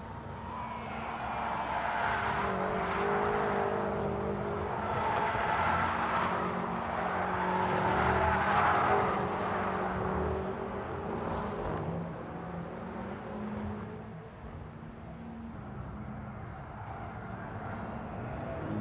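BMW X6 M's twin-turbo V8 being driven, its engine note rising and falling in pitch. It is loudest in the first half and eases off after about twelve seconds.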